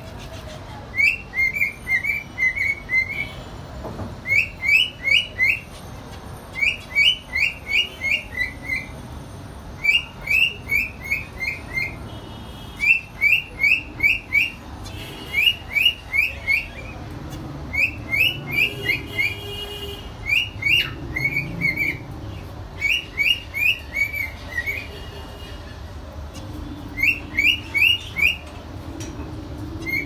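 Zebra finches calling over and over: short, high calls in quick runs of four to six, a run every second or two.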